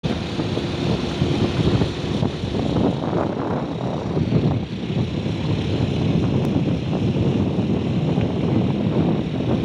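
Steady, rumbling road and wind noise of a moving vehicle, with no distinct events.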